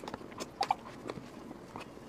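Close-miked wet chewing and lip-smacking on a mouthful of soft cream cake with mango: short, scattered soft clicks and smacks.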